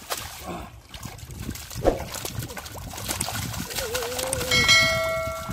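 Hands splashing and squelching in shallow muddy water as catfish are grabbed, with a sharp slap about two seconds in. Near the end a wavering pitched call gives way to a steady pitched tone lasting about a second and a half.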